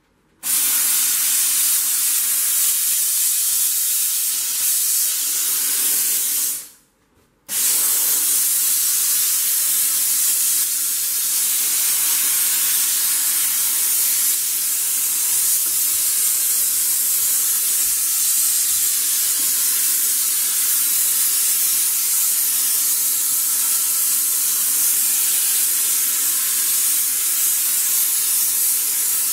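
Sauber Brilliance steam cleaner jetting steam in a steady hiss. It starts just after the beginning and cuts out briefly about seven seconds in before resuming.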